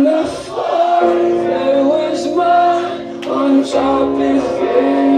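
Rock band playing live, with singing over held, sustained chords.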